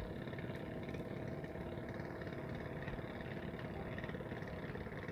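Steady hum of an engine running at a constant speed, with a faint even tone held through it.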